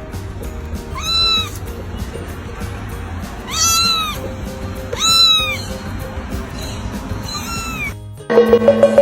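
A cat meowing four times, each meow a short call that rises and falls in pitch, the middle two the loudest, over background music.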